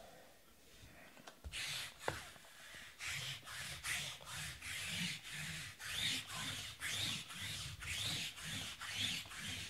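Trading cards being slid off a stack one after another: a quick papery swish about three times a second, with a single light tap about two seconds in.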